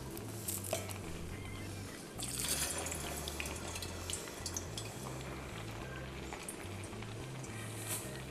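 Polpette deep-frying in a pot of hot peanut oil: steady sizzling with many small crackles, growing louder about two seconds in as the oil foams up around the balls.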